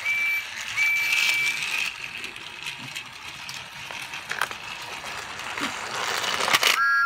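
Battery-powered toy Thomas engine running along plastic track: a small motor whirring with a light rattle and occasional clicks. Two short high steady beeps sound near the start.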